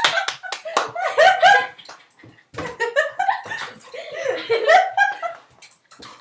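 A girl laughing and giggling in bursts, mixed with a pet's pitched vocal calls as she wrestles with it.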